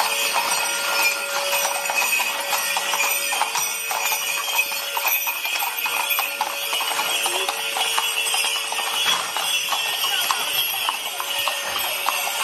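Several horses walking on a paved street, hooves clip-clopping, with bells jingling continuously over the hoof beats.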